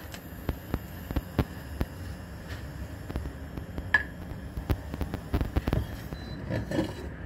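Oil ticking and popping in a heating stainless steel frying pan, irregular sharp clicks over a steady hum, with one metallic clink about four seconds in.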